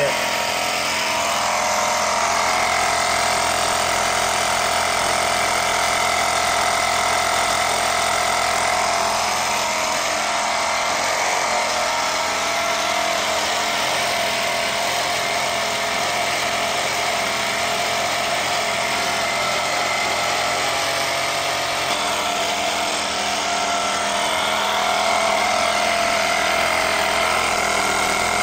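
Small electric air pump running steadily, inflating a motorcycle tire that is cinched with a strap to force the tire bead to seat.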